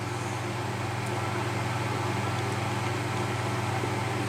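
Steady low machine hum with no change or separate events.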